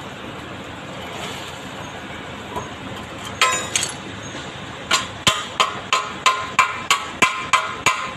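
Hammer striking the end of a sheet-metal gutter. There are a couple of blows a little over three seconds in, then steady blows about three a second from about five seconds in, each with a short metallic ring.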